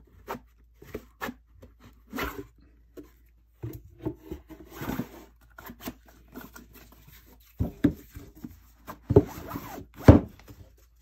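Hardcover book being slid out of its fabric-covered cardboard slipcase and handled: irregular rubbing and scraping, with a few louder knocks in the last few seconds.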